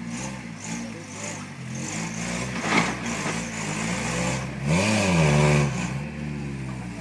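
Lifted Toyota pickup's engine revving hard in repeated surges under load as it climbs a slick mud bank, the pitch rising and falling, with the biggest surge about five seconds in. A sharp knock sounds about three seconds in.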